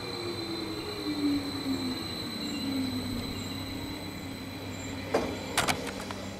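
Stadler FLIRT electric multiple unit approaching, its motor whine falling steadily in pitch as it slows, over the rumble of the wheels on the rails. A few sharp clacks come near the end.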